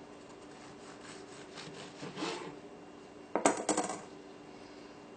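A knife sawing through a crisp choux-pastry cream puff on a plastic cutting board: light scraping strokes, then a louder cluster of sharp crackles about three and a half seconds in as the shell gives way.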